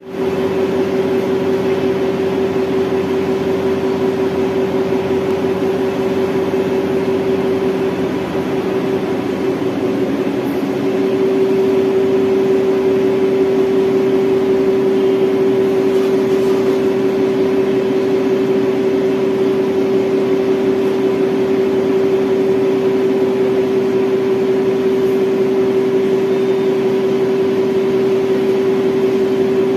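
Electric reach truck's hydraulic pump motor whining steadily as the mast lifts a loaded pallet toward the top rack. The tone wavers and dips briefly about eight to ten seconds in, then steadies.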